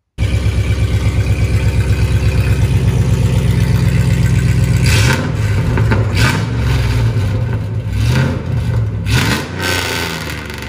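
Ram 1500's 5.7-litre Hemi V8 through a straight-piped, catless exhaust, idling with a rapid, loud pulsing for about five seconds and then revved four times, the pitch rising and falling with each blip.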